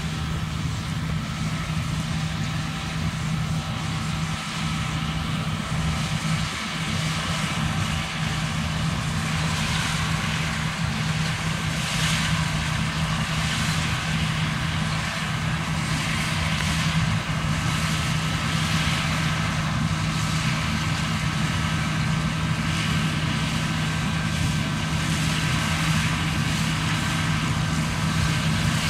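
John Deere combine harvester running steadily while harvesting barley. A constant low engine hum carries a faint steady whine above it, and a rushing hiss comes and goes from about a third of the way in.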